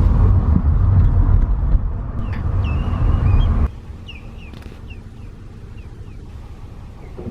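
A loud low rumble that cuts off suddenly a little past halfway, with short high bird chirps through the middle.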